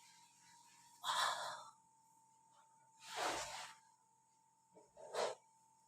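A man gasping and breathing out hard three times, about two seconds apart, as if reacting to pressure during a massage.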